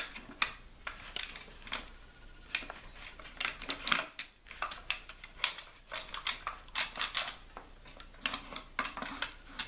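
Irregular metallic clicks and clacks of a Benelli Nova pump shotgun's action-bar rods and forearm being handled and slid into place during reassembly.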